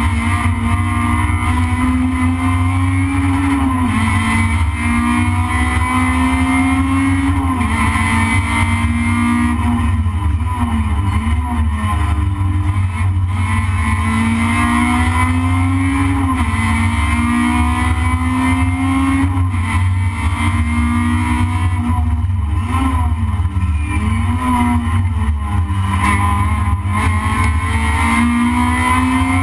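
Toyota Corolla race car's engine heard from inside the cabin under hard driving. Its pitch climbs through each gear and drops at every shift or lift, over and over, above a constant heavy low rumble.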